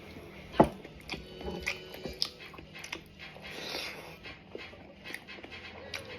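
Close-miked eating of a thick Padang-style omelette: repeated small wet clicks and soft crunches of biting and chewing. One loud, short sound that drops in pitch comes about half a second in.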